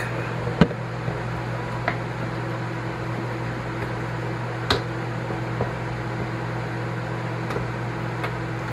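A steady low mechanical hum, with a few scattered sharp clicks and taps of metal kitchen tongs against a plastic container; the sharpest tap comes just after the middle.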